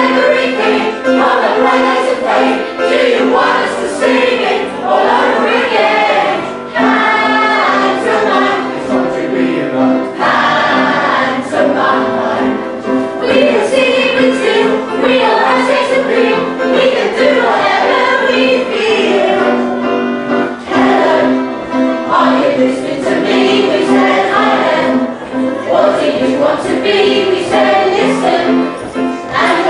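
A stage cast of men and women singing a song together in chorus.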